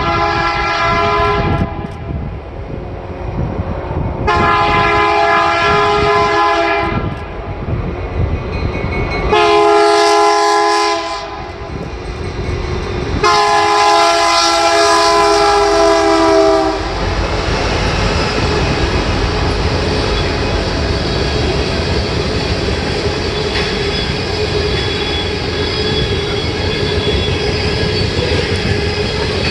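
A freight locomotive's multi-chime air horn blows the grade-crossing signal, long, long, short, long, with the last blast held longest. The train then rolls past with a steady rumble and clicking wheels.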